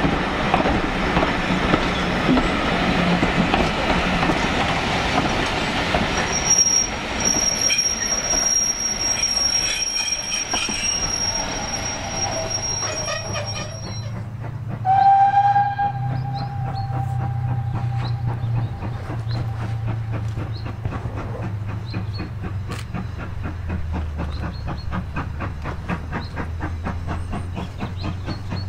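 Passenger coaches rolling past, wheels clattering over the rail joints, with a high steady wheel squeal for several seconds. Then a steam locomotive's whistle sounds once, its note trailing off, and a low rumble with regular exhaust beats builds as the engine approaches.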